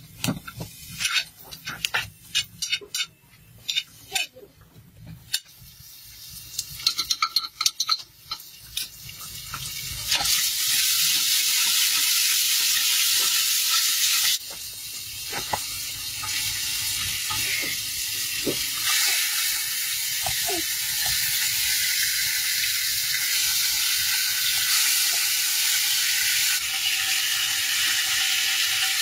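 Sliced onions frying in a metal pot on a wood fire, stirred with a metal spoon. Spoon clinks and knocks on the pot come first; about ten seconds in, a loud steady sizzle starts and continues.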